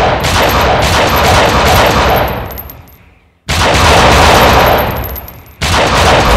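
Gunfire sound effects: loud rattling bursts that each start sharply and die away over two to three seconds, one at the start, one about halfway through and another near the end.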